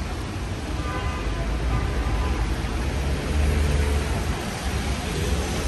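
City street traffic: a steady hiss with a low engine rumble that swells as a vehicle passes about three and a half seconds in.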